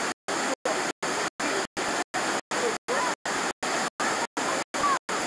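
Steady hiss of outdoor noise with faint voices, cut by short silent dropouts about three times a second: a recording glitch.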